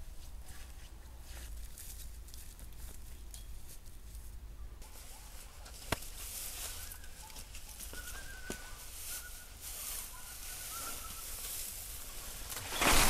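Dry hay rustling and crackling as it is dragged and handled at a wooden sheep feeder. There is one sharp click about halfway through, and a loud rush of hay near the end as an armful is heaved up into the rack.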